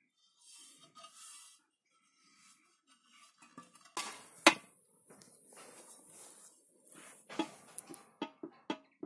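A hammer strikes a steel rotary-mower disc resting on a steel plate: one sharp metallic blow about four and a half seconds in, then the disc scraping and shifting on the plate, and a quick run of lighter metal knocks near the end.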